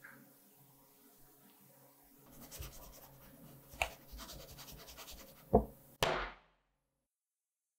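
A metal sheet pan of cake batter scraped and shifted on a wooden table, then knocked down on the table twice near the end, the first knock the loudest and sharpest.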